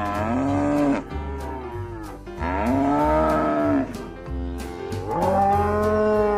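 Cattle mooing: three long, drawn-out moos, each rising then falling in pitch, over background music.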